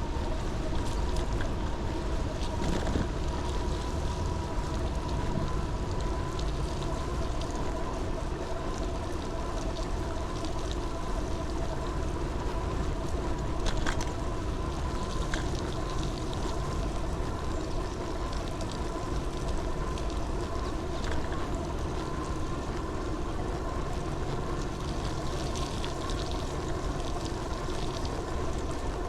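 Vehicle running steadily: a constant whine with several steady tones over a low rumble, and a few faint ticks.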